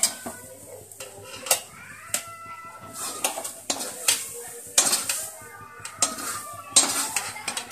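Metal ladle clinking and scraping against an iron kadhai while stirring boiling sugar syrup, with sharp knocks coming unevenly, roughly once a second.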